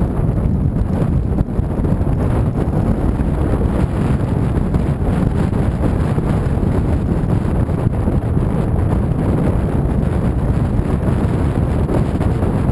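Steady heavy wind rumble on the microphone of a camera moving at riding speed on a motorcycle, with the engine and road noise underneath.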